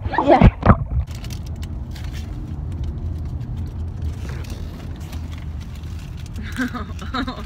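Steady low rumble of a car driving, heard from inside the cabin. In the first second, a voice over splashing water cuts off.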